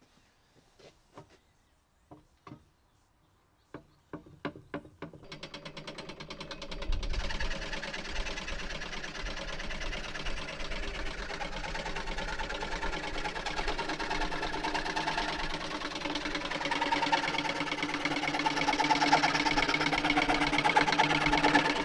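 Barnes No. 2 foot-powered treadle scroll saw starting up: a few faint clicks, then about four seconds in the treadle gets going and its strokes speed up into a fast, steady mechanical clatter as the blade runs up and down. The blade cuts through a wood block, and the running grows louder in the second half.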